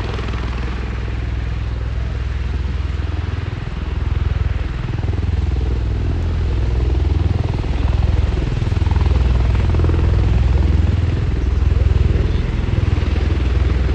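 V-22 Osprey tiltrotor hovering low in helicopter mode, its two proprotors making a deep, steady throbbing beat. It grows louder about four seconds in and again a few seconds later.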